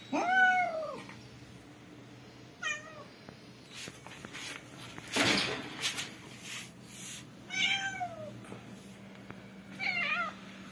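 Domestic cat meowing for food, four separate meows: a long, loud one that rises and falls at the start, a short one about two and a half seconds in, another near eight seconds and a wavering one near the end. A brief rustling noise comes about five seconds in.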